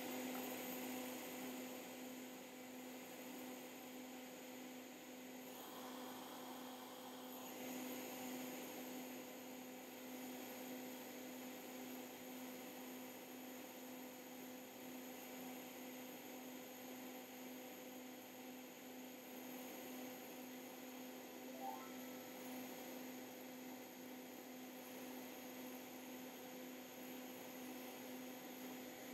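Faint, steady electrical hum over a low hiss.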